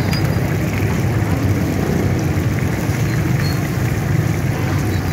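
Fish and chicken deep-frying in a large iron karahi, the oil bubbling and sizzling, over a loud steady low rumble.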